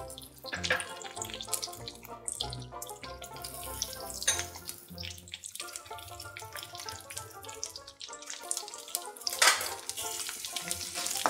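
Green chillies sizzling as they drop into hot oil in an iron kadai, a light crackling hiss that swells about nine seconds in. Background music plays throughout.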